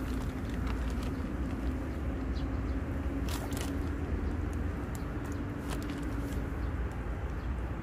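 Steady low rumble with a motor-like hum running through it that fades out near the end, and scattered small clicks and crinkles from hands handling a plastic bag and wet mud.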